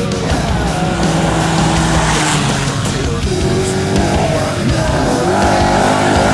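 Off-road desert race vehicle engines running hard, mixed with background music.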